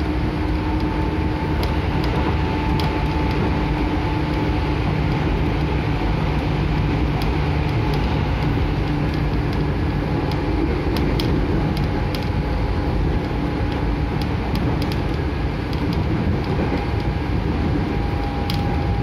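Interior running noise of a JR 205-0 series electric multiple unit under way: a steady rumble of wheels on rail with a faint steady motor hum, and now and then sharp clicks as the wheels pass rail joints.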